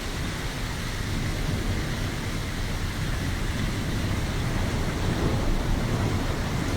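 Heavy storm downpour: a steady, even rush of rain with a deep low rumble underneath.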